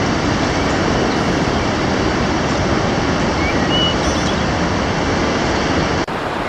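Rushing water: a loud, steady roar, cut off abruptly about six seconds in.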